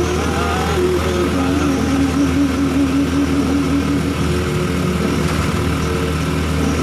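Honda Supra Fit motorcycle engine running steadily as the bike is ridden, a continuous low hum with road noise. A wavering tone rides over it for a couple of seconds from about a second in.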